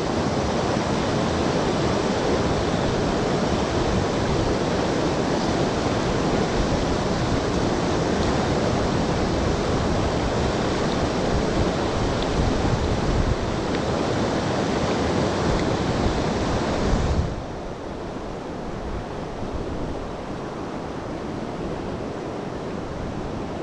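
Steady rushing of the Yoshino River's main current, an even wash of water noise with no distinct events; about seventeen seconds in it suddenly becomes quieter and duller.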